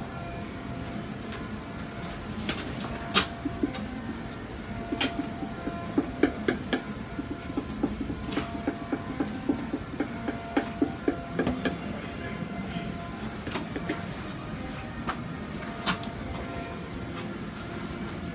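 Metal palette knife clicking and scraping as oil and cold wax paint is worked onto a textured cradled panel: a run of quick clicks in the middle, with a few sharper single clicks, over a steady low hum.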